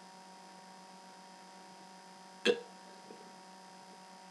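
A single short, abrupt burp about two and a half seconds in, over a steady electrical hum.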